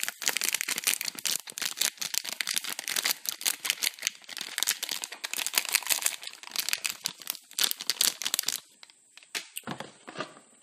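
A Moccona Mochaccino instant coffee sachet crinkling and rustling with dense crackles as it is shaken and squeezed to empty the powder into a mug. The crinkling stops about eight and a half seconds in, followed by a couple of soft knocks.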